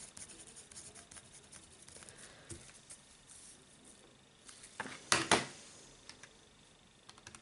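Pen scratching faintly on paper as a word is written, with a brief louder rustle about five seconds in.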